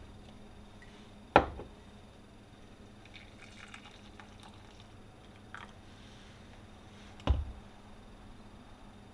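A glass mug set down on a kitchen countertop with a sharp knock, then coffee poured quietly from a French press into it, and the press set back down on the counter with a second knock near the end.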